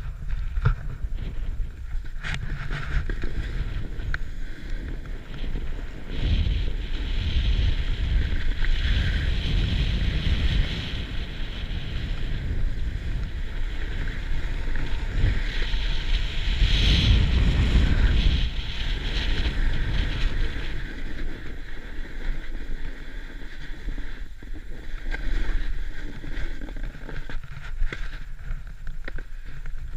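Wind buffeting a first-person camera's microphone as a continuous low rumble with some hiss, gusting stronger about a fifth of the way in and again just past the middle.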